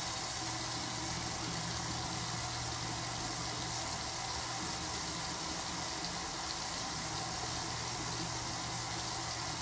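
Bathroom ceiling exhaust fan running: a steady low hum under an even hiss.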